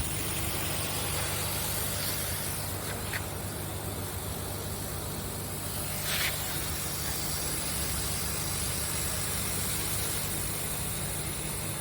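CO2 laser cutter running while cutting thick nylon: a steady hiss of air over a constant low machine hum, with two brief ticks about three and six seconds in.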